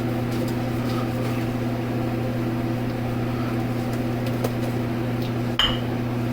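Electric fan running with a steady hum, and one brief click about five and a half seconds in.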